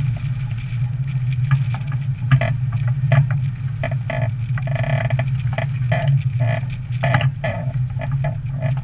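Steady low rumble of wind on a GoPro mounted on a pinky schooner's fore gaff, broken by frequent short creaks and knocks, at times several a second, from the gaff and rigging as the schooner sails.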